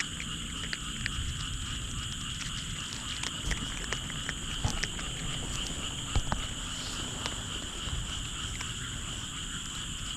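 A steady chorus of frogs calling, a continuous high trill, with scattered soft clicks and taps over it.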